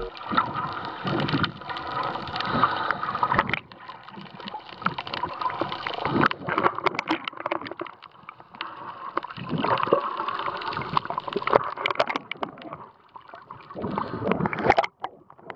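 Water sloshing and gurgling around an action camera held underwater and at the surface while snorkeling, with scattered sharp knocks. The sound changes abruptly every few seconds.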